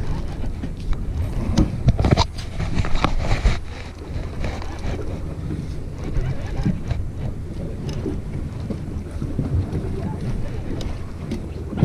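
Steady low rumble of wind on the microphone aboard a boat. Scattered clicks and knocks come from a conventional fishing reel being cranked to reel in a hooked fish.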